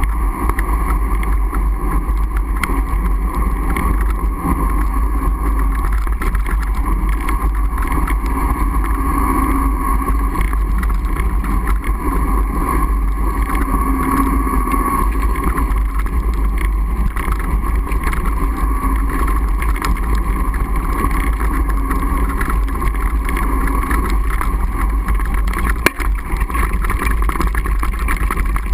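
Steady rushing and rumbling of a fat bike riding down packed snow, heard through a handlebar-mounted action camera: wind on the microphone and the wide knobby tire rolling over the snow, with a hum that wavers with speed. A single knock near the end.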